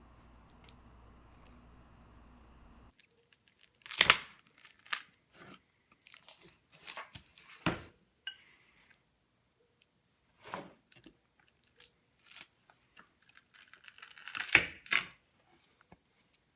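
Melamine mold bottom being pried and peeled off a cured epoxy-and-wood coaster blank: a series of irregular cracks, snaps and tearing sounds. The loudest come about four seconds in and again near the end.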